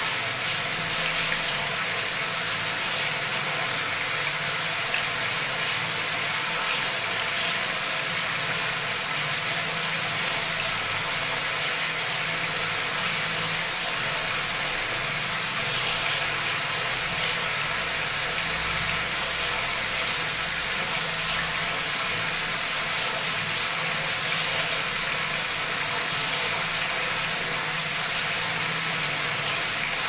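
Tap water gushing hard into a brim-full tiled bathroom tub, an even, steady rush as the tub overflows.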